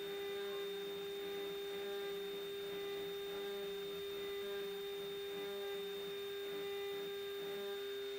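Shapeoko 5 Pro CNC router's spindle running at speed: a steady single-pitched whine, with a fainter wavering sound beneath it as the engraving bit works over the pencil lead.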